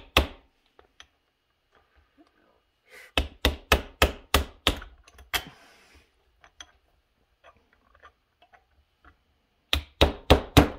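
Steel drift struck with a mallet to drive the wrist pin into an Echo CS670 chainsaw piston: one blow at the start, then two quick runs of about six and five sharp blows a few seconds apart, with light metal clinks between.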